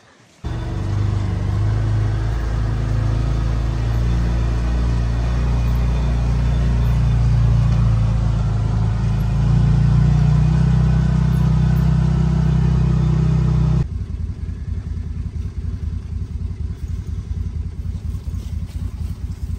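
UTV engine running steadily while driving up a rocky dirt trail, its drone rising a little about halfway through. About fourteen seconds in it cuts off abruptly to a quieter, fluttering low rumble.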